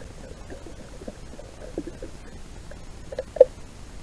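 A steel thermos being handled and opened: scattered light knocks and scrapes, with one sharper, louder clunk about three and a half seconds in.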